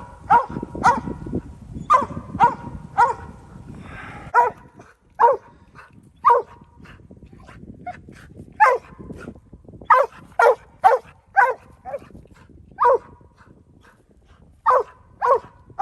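Mountain Cur barking treed: about sixteen short, single chop barks at irregular gaps of half a second to two seconds, the dog baying up a big oak where it has treed a squirrel in a den.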